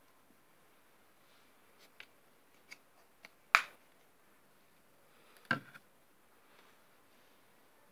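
A few scattered sharp clicks and taps against a quiet background, the loudest about three and a half seconds in and another, with a dull low thump, about five and a half seconds in.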